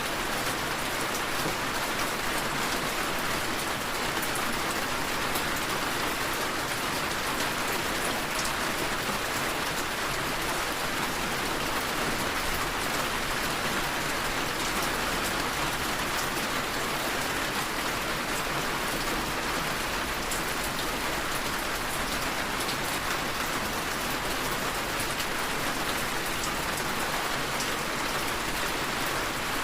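Steady rainfall: an even hiss of rain with a fine patter of individual drops, unchanging throughout.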